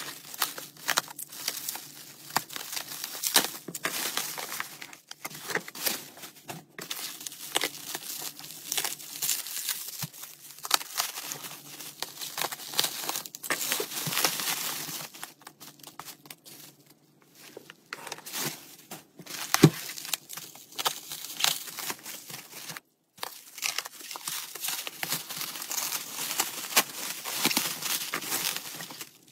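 Plastic packaging crinkling and rustling in irregular crackles as it is handled and pulled open by hand, with a brief lull a little past the middle.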